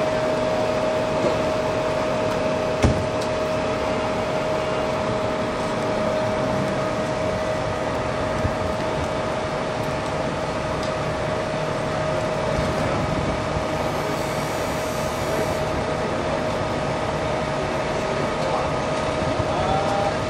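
Steady mechanical drone of idling vehicle engines with a constant hum, and a single knock about three seconds in.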